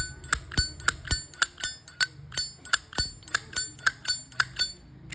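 Brushed-chrome Zippo lighter being clicked open and snapped shut over and over: a quick run of sharp metallic clinks, about four a second, each with a short bright ring.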